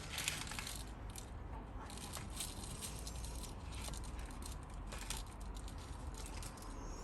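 Small metal lock top pins clicking and rattling as they are handled and poured into a parts container, with a scatter of light ticks throughout.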